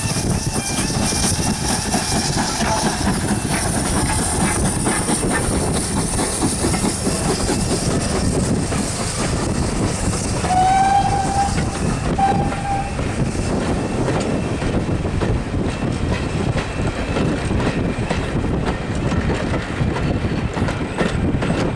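Steam locomotive 5643 passing with its train, a continuous rumble of the engine and carriage wheels on the rails, with strong wind buffeting the microphone. About ten seconds in, the engine gives two short whistle blasts, one after the other.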